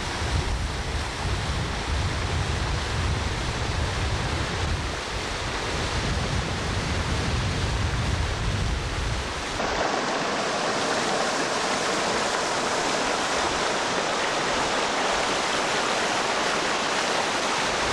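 Stream water rushing and splashing over rocks in a steady, noisy torrent. A heavy low rumble lies under it until about ten seconds in, where it cuts off suddenly and leaves a brighter, hissing rush of water.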